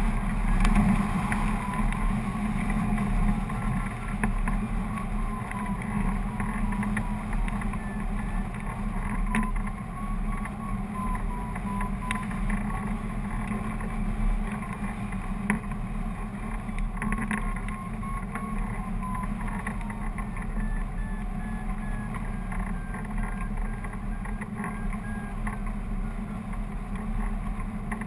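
Steady wind rushing and buffeting over a hang glider-mounted camera's microphone in flight, a continuous low rumble.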